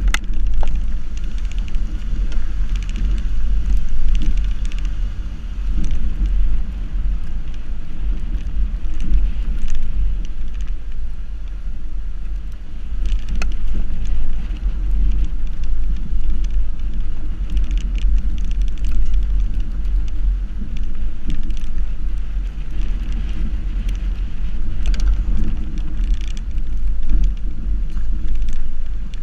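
Subaru XV driving a rough dirt track, heard from a camera mounted low beside a wheel: a steady low rumble of tyre and road noise, with scattered clicks of gravel and stones under the tyres.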